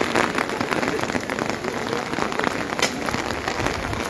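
Heavy rain pouring down and splashing on wet pavement, a dense steady hiss full of close drop strikes. One sharper tap stands out near three seconds in.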